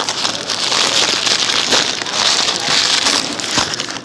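Paper burger wrapper crinkling and rustling close to the microphone, a dense run of crackles as it is handled and folded.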